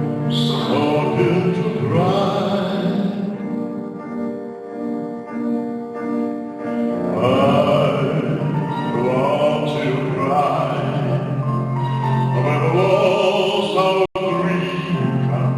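Baritone singing with vibrato over piano accompaniment, in phrases of a few seconds each. The sound cuts out completely for a split second near the end.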